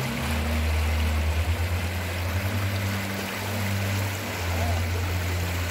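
Fast water rushing down a concrete irrigation canal, a steady hiss. Under it runs a low hum that steps to a new pitch every second or two.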